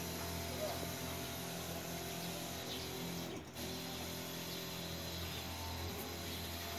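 Backpack sprayer misting disinfectant: a steady motor hum with a hiss of spray, briefly dipping about three and a half seconds in.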